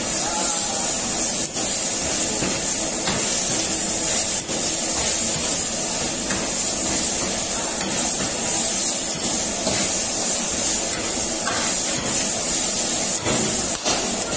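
Chicken sizzling and frying in a steel wok over a high gas flame, a steady loud hiss. The metal spatula scrapes and knocks against the wok a few times as the meat is turned.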